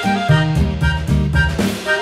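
Instrumental background music with a steady beat, bass notes and drums.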